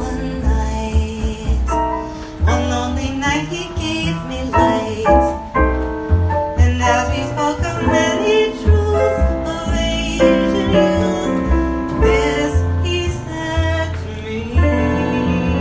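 Live jazz played on keyboard and bass: a flowing keyboard line over a walking low bass part.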